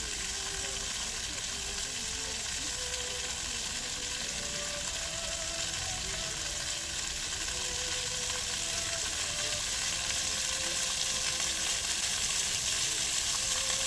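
Water jets of an illuminated dancing fountain spraying up and splashing down onto wet paving: a steady hiss that grows a little louder near the end as the jets rise higher.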